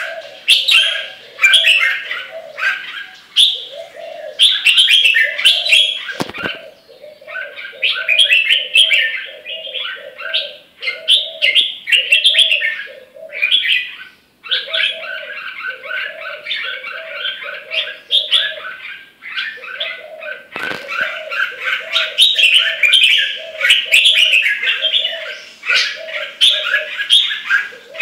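Caged red-whiskered bulbul singing loud, bubbly phrases over and over with short pauses between them, with two brief knocks among the phrases.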